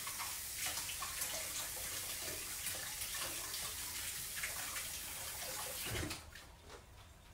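Kitchen faucet running in a steady stream, shut off about six seconds in.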